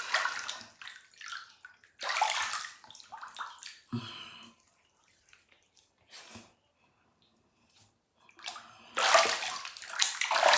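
Bathwater splashing in a tub in several short bursts with quiet gaps between them, as a bather scoops water in her hands onto her face; the longest splashing comes near the end.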